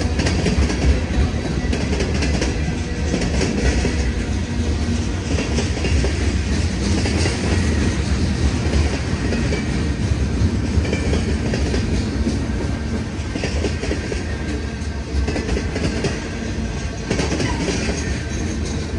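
CSX freight train rolling steadily past, its car wheels clacking over the rail joints with a continuous heavy rumble.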